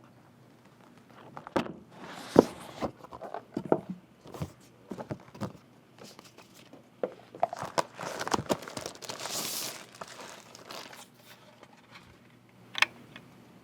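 Irregular clicks and knocks mixed with stretches of crinkling, rustling noise, louder around two seconds in and again around the eight-to-ten-second mark, with a last sharp click near the end.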